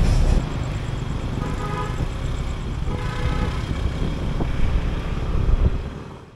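Street traffic of cars and motor scooters driving past, a steady rumble that is loudest at the start. Two short horn toots come about one and a half and three seconds in, and the sound fades out near the end.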